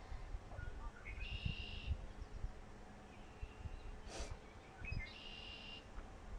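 A songbird singing twice, about four seconds apart; each phrase is a short note followed by a buzzy trill lasting about half a second. A single faint click comes a little after four seconds, over a low rumble.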